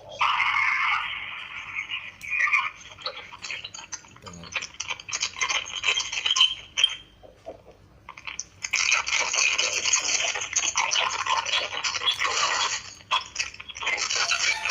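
Small metal tool scraping and clicking against a smartphone's circuit board, prying at the metal shield can, in a run of rasping strokes broken by two short pauses.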